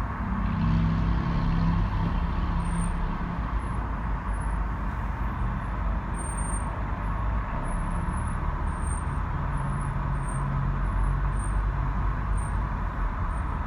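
Road and running noise inside the cabin of a 2019 Acura RDX while it is driven, with short, faint high-pitched brake squeals coming and going. The squeal has persisted through repeated pad and rotor replacements.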